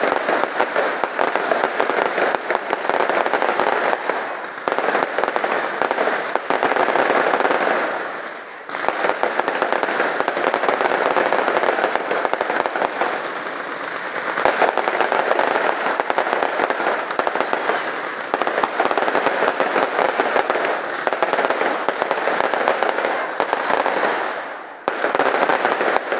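Fireworks display: a dense, continuous barrage of crackling and popping bursts, with brief lulls about eight seconds in and near the end.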